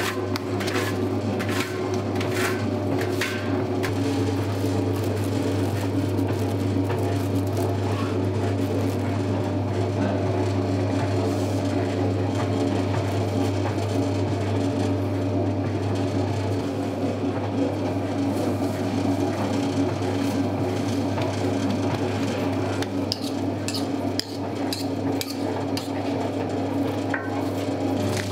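Commercial spiral dough mixer running steadily, its motor humming as the hook kneads a large batch of bread dough in the stainless bowl. A few knocks and scrapes against the bowl come in the first three seconds.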